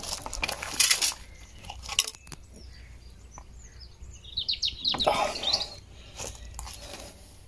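A bird gives a quick run of rising chirps about halfway through, between brief rushing noises near the start and again around five seconds in.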